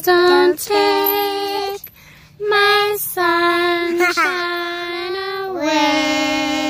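A toddler singing a slow tune in about six long held notes, the last one drawn out near the end.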